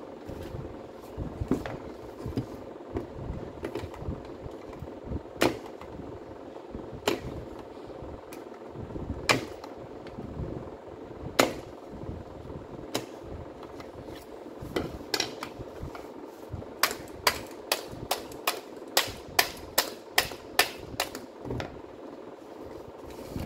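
Sharp clicks and knocks of hand tools and metal and plastic parts being handled during trimmer disassembly. They come irregularly at first, then in a quicker run of about a dozen clicks, a little over two a second, near the end, over a faint steady hum.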